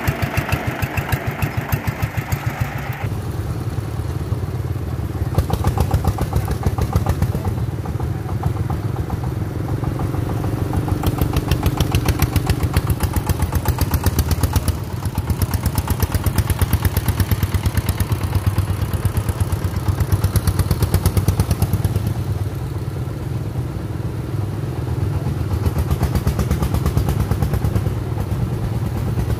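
Single-cylinder diesel engine of a three-wheeled công nông farm truck chugging steadily under load as it tows a small excavator. The note changes about three seconds in.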